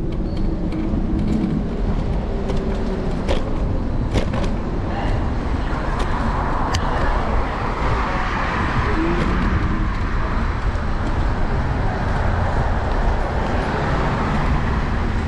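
City street traffic heard from a moving electric scooter, under a steady low rumble at the handlebar-mounted microphone. The traffic noise swells in the middle, with a few sharp clicks early on.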